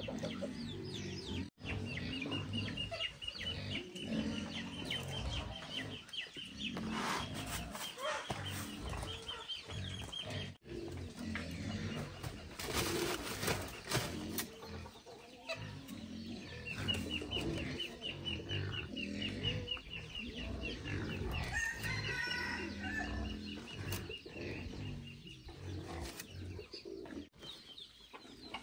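Chickens clucking, with a high, fast-pulsing trill running for long stretches twice.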